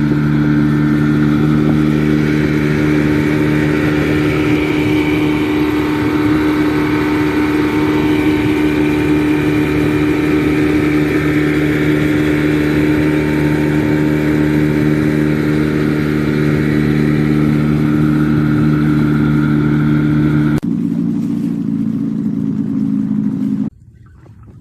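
A small boat's motor running steadily at a constant speed. About 21 seconds in it drops abruptly to a lower, quieter running, then stops near the end.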